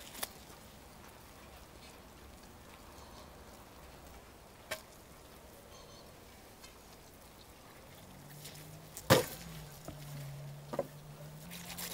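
Carving a whole roast lamb with a large knife: quiet cutting with a few scattered clicks and knocks, and one much louder sharp knock about nine seconds in. A low hum joins in for the last few seconds.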